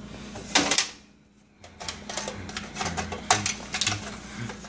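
A clear plastic bag of loose rifle cartridges crinkling, with the cartridges clinking together inside, as it is handled and pulled off a wire fridge shelf. A loud crinkle about half a second in is followed by a short hush, then a busy run of rustling and clicking.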